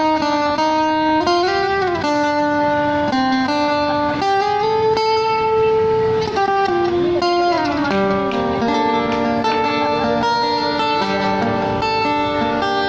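Guitar-led music played through a portable amplifier speaker, with held notes that bend in pitch.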